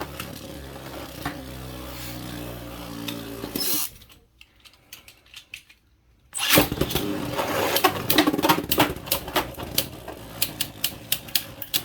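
Beyblade spinning tops whirring in a plastic stadium. After a short quiet gap, a new round starts with a loud burst at the launch. It is followed by rapid, irregular clacking as the tops hit each other and the stadium walls.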